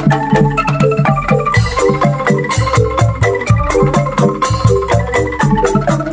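Indonesian angklung street band playing an instrumental tune: shaken bamboo angklung and tremolo angklung play the melody over bass angklung notes, with a gambang xylophone and a kecrek clapper keeping a steady, even beat.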